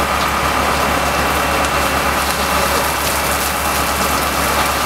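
Burning timber in a building fire: a steady crackling hiss with scattered small pops, over a steady low rumble.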